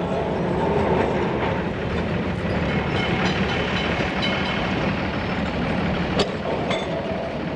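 Street tram running on its rails, wheels clattering, with street traffic around it and a sharp knock about six seconds in.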